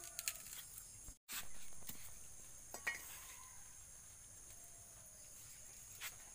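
Faint scattered clicks and rustles of dry coconut husk being pulled apart by hand and cut with a curved blade, over a steady high-pitched insect drone. The sound cuts out for an instant about a second in.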